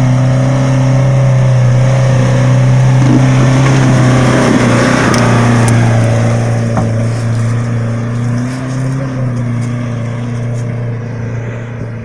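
Off-road 4x4's engine running at steady revs under load, holding one pitch, then fading away in the last few seconds.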